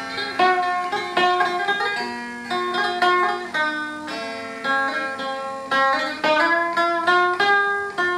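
Sape, the Bornean boat-shaped lute, plucked in a slow melody of single notes and short runs, each note ringing and dying away.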